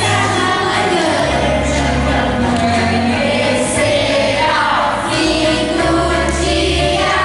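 A group of children singing together over recorded backing music with a steady bass line.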